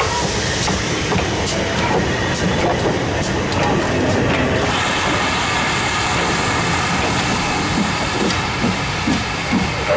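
GWR Manor class 4-6-0 steam locomotive No. 7822 and its train rolling past close by, the locomotive and tender first, then the coaches. Sharp clicks come in the first few seconds, then a steady rolling rumble as the coaches go by.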